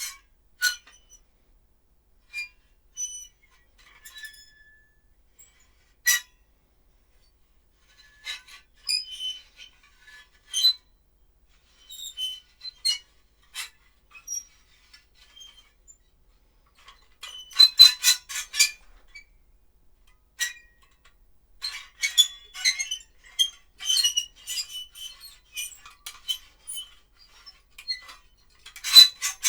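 Foley take of small hard objects clinking and rattling: scattered light, bright clicks and short ringing clinks, with a dense rattle about two-thirds through and another at the end.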